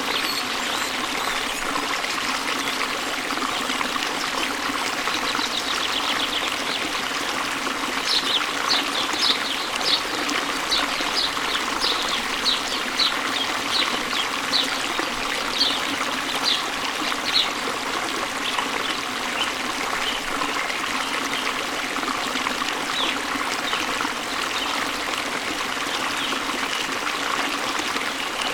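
Steady rush of a waterfall and flowing stream water. About a third of the way in, a bird repeats short high chirps about twice a second for roughly ten seconds.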